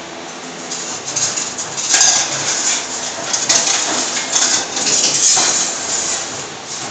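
CNC rebar stirrup bending machine running: steel wire drawn through its straightening rollers and bent into stirrups by the bending head, a steady motor hum under loud metallic knocks about once a second.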